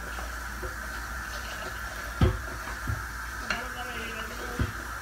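A utensil mixing salad in a glass bowl, knocking against the bowl a few times, the loudest knock about two seconds in.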